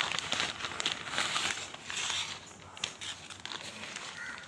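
Packaging crinkling and rustling as a headset is pulled out of its box by hand. It is busiest for the first two seconds or so, then dies down.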